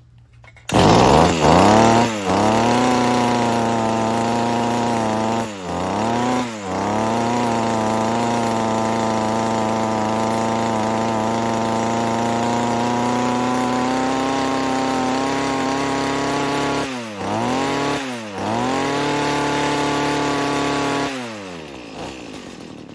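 Mantis tiller's small two-stroke engine running fast, its revs sagging and recovering several times, then falling away near the end. The uneven running is the sign of a freshly rebuilt carburettor that still needs adjusting at the idle screw.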